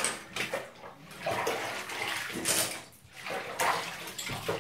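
Hands swishing and splashing through soapy wash water in a tub, in uneven strokes.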